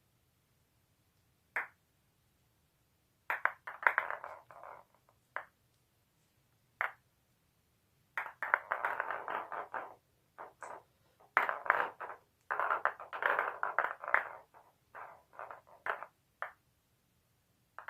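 Bursts of sharp pinging taps and clicks: single strikes at first, then dense runs of rapid hits.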